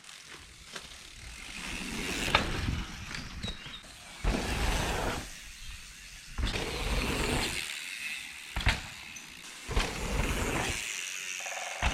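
Scott Voltage FR710 downhill mountain bike being ridden on a dirt trail: tyre and wind noise that rises and falls in surges, with a few sharp knocks from the bike.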